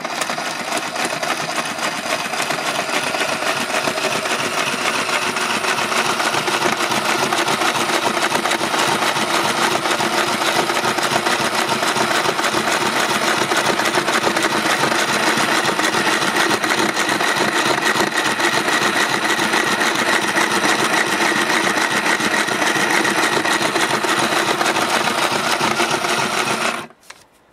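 Small motor-driven sewing machine running steadily as it stitches through fabric: a fast whir with the rapid clatter of the needle. It starts abruptly and stops suddenly shortly before the end.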